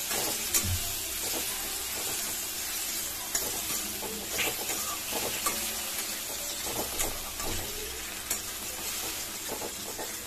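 Onions, tomatoes and spices sizzling in oil in a kadhai while a metal spatula stirs and scrapes them, with scattered clinks and knocks of the spatula against the pan.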